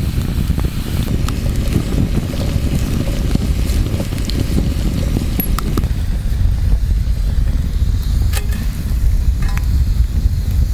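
Wood campfire crackling, with scattered sharp pops over a steady low rumble.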